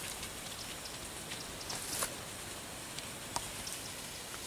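Quiet open-air background: a steady faint hiss with a few soft, scattered ticks and rustles.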